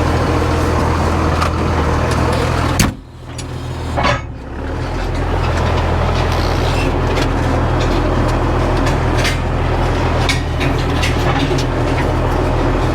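Vehicle engine running steadily with a low hum. About three seconds in, a sharp knock is followed by a brief drop, then another knock a second later, and the engine hum carries on.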